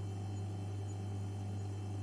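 Continuous electrical hum and buzz: a steady low hum with fainter higher overtones and a light hiss, unchanging.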